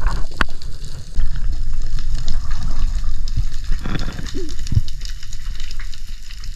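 Water rushing and sloshing with a heavy low rumble, broken by a few sharp clicks.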